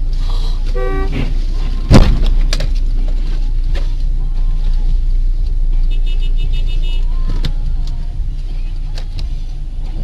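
Steady rumble of a car on the road, with one loud sudden bang about two seconds in, typical of a vehicle collision. A short run of falling beeps comes just before it, and quick high-pitched beeping follows around six seconds in.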